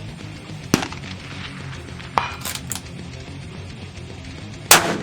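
Several sharp rifle shots with a pause of a second or two between them, the loudest near the end, over faint background music.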